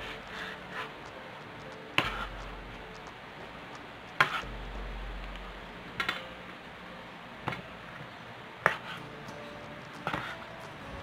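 Kitchen knife knocking on a wooden chopping board while boiled beef innards are cut: about seven single sharp knocks, one every second and a half to two seconds.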